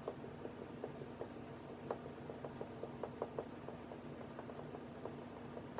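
Dry-erase marker drawing on a whiteboard: faint, irregular short squeaks and taps of the marker tip, over a low steady hum.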